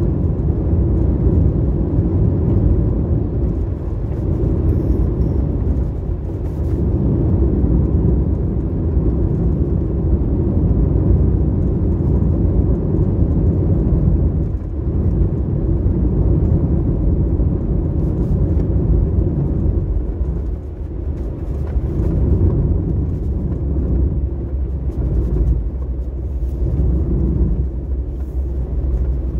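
Steady low rumble of a car driving on the road, engine and tyre noise with no distinct events.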